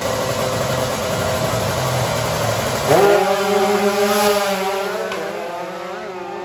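Two drag-racing motorcycles revving at the start line, then launching about three seconds in. The engine pitch leaps up and then holds nearly steady as they pull away, fading toward the end.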